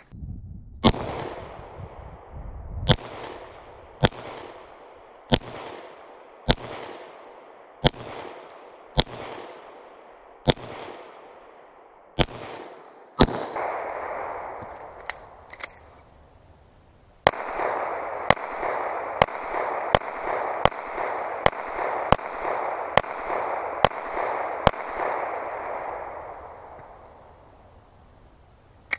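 Twenty 9mm pistol shots from a Smith & Wesson M&P: ten shots about one a second, each trailing off in an echo, then a pause of a few seconds with small clicks of a magazine reload, then ten faster shots.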